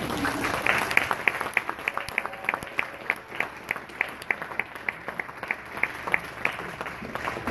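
Audience applauding, with one clapper close by clapping steadily about three times a second over the crowd's clapping.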